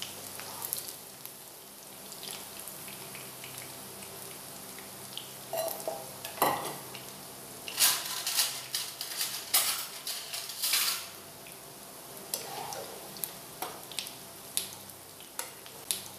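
Okra frying in hot oil in a kadhai with a steady sizzle, while a metal slotted spoon scoops the pieces out and clinks and scrapes against the pan and a steel bowl. The loudest clatters come between about six and eleven seconds in, with more lighter ones near the end.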